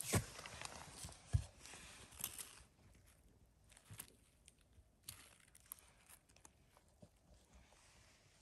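Footsteps crunching on dry fallen leaves and pine needles for the first couple of seconds, then only faint, scattered rustles and clicks of leaf litter being touched.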